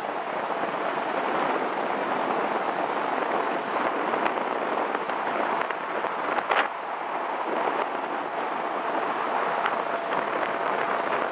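Jet boat under way on a river: a steady rush of wind on the microphone and water hissing past the hull over the boat's running drive. There is one brief knock about six and a half seconds in.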